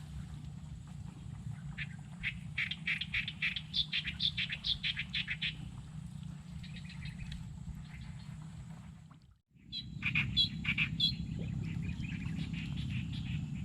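Bird calls in fast runs of short, sharp high notes, a long run in the first half and a few more notes later, over a steady low rumble.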